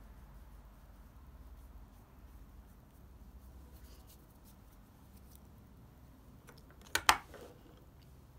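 Faint rubbing of fingertips on skin and hands, then a quick double clap of the hands about seven seconds in.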